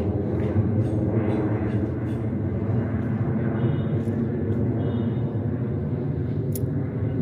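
A steady low rumbling outdoor noise, with a few faint clicks over it.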